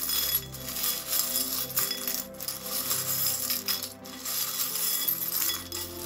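Small divination charms clinking and jingling against one another and the mixing cup as they are picked and mixed by hand, a steady patter of little clicks. Soft background music plays underneath.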